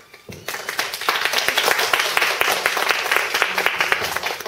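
Audience applauding: many hands clapping, swelling about a second in and starting to thin near the end.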